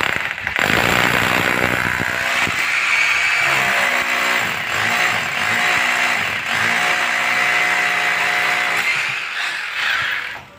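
Corded electric drill with a masonry bit boring into a concrete wall through a wall-mount bracket, the motor running steadily under load, then stopping near the end.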